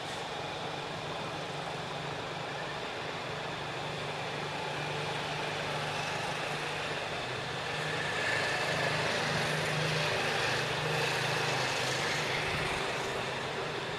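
Steady outdoor background noise with the low hum of a vehicle engine running, growing a little louder for a few seconds in the middle.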